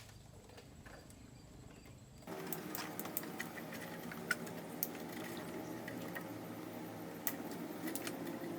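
A small electric motor starts abruptly about two seconds in and runs with a steady whir, with a few light clicks over it.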